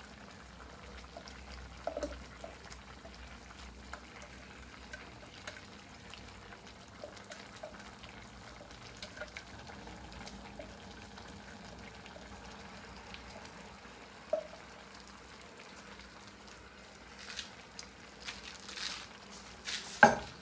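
Pig's blood being poured slowly from a metal pot into a wok of simmering pork: a faint, steady liquid trickle with light clinks of metal. A few scrapes and one sharp knock come near the end.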